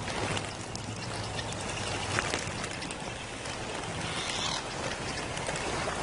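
Water trickling and splashing, with scattered small knocks, as a lioness drags a greater kudu carcass through the shallows.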